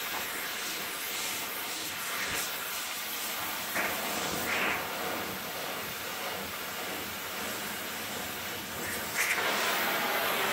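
Gas torch flame hissing steadily while heating a metal part, growing louder about nine seconds in.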